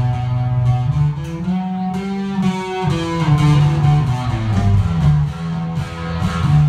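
Electric bass guitar playing a line of held notes that change pitch every second or so, with drum and cymbal hits behind it.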